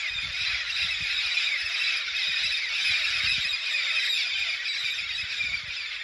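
A large flock of red-spectacled amazons (papagaio-charão) calling in flight overhead: a steady, dense chorus of many overlapping squealing calls.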